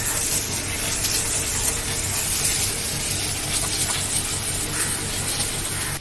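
High-pressure water jet spraying onto a drum brake's backing plate and wheel hub to wash out carbon and dirt: a steady hiss of spray and splashing that cuts off at the end.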